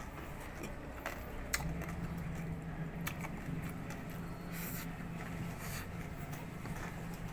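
Crunching and chewing of crispy deep-fried pork face (maskara ng baboy), a few sharp crackly bites and short crunchy bursts, over a steady low hum.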